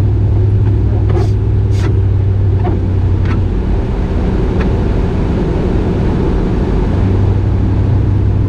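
Cabin sound of a 1993 Chevrolet Camaro Z28 under way, its 5.7-litre LT1 V8 droning low under road noise. The drone eases about three and a half seconds in and comes back about seven seconds in, with a few sharp clicks near the start.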